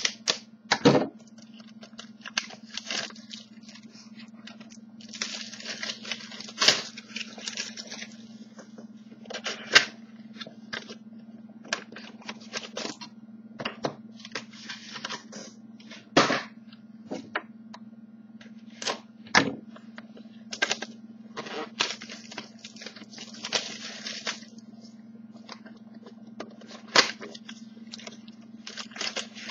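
A sealed trading-card box and its packs being opened by hand: irregular crinkling of wrappers and crackling, snapping clicks of cardboard and plastic, over a steady low electrical hum.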